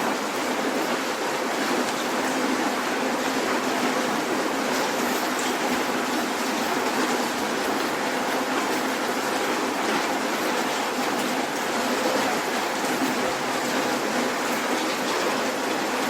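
Soft rain falling steadily on city surfaces: an even hiss with scattered drop ticks.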